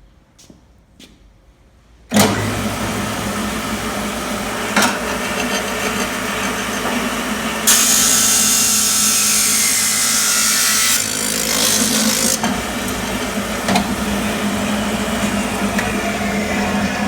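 Everett 1416 abrasive cut-off chop saw with a 7.5 hp three-phase Baldor motor starting up suddenly about two seconds in and running with a steady hum. From about eight to eleven seconds the abrasive wheel grinds through a piece of steel angle iron, a loud, bright hissing screech over the motor, after which the saw runs on freely.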